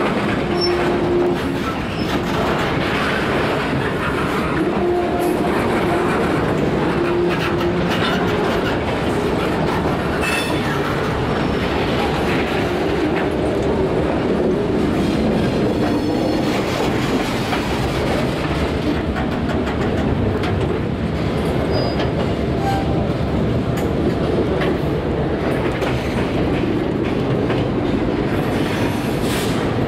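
Freight train boxcars rolling past close by, their wheels clicking over the rail joints, with wheel squeal now and then.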